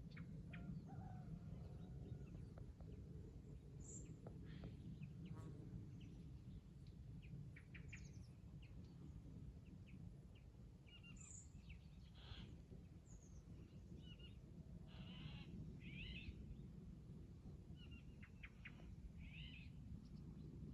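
Faint birdsong: scattered short chirps and trills from several birds, over a steady low rumble.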